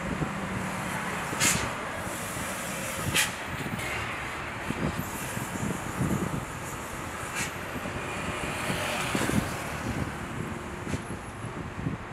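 Boeing 747-400F jet engines running at taxi power as the freighter rolls along the taxiway: a steady distant rumble with hiss and a faint high whine, with a few short sharp clicks.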